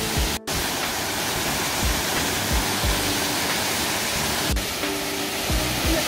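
Steady rush of a high waterfall, about 28 m, pouring into a plunge pool, under background music with held notes and a soft low beat. The sound drops out for a moment about half a second in.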